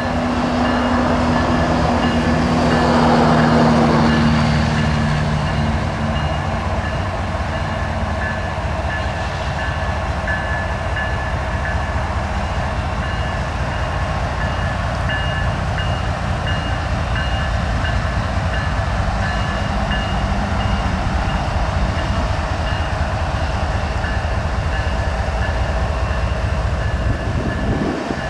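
CSX diesel locomotive moving slowly past over continuous low rumbling of wheels on rails. Its engine drone is loudest a few seconds in, then fades.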